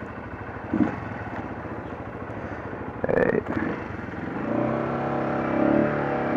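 2007 Honda CBR125's small single-cylinder four-stroke engine running at idle, then from about four and a half seconds in the engine note gets louder and the revs rise as the bike pulls away.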